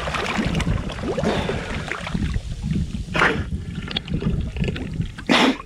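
Wind buffeting the microphone, a low uneven rumble, with two short hissing bursts about three and five seconds in.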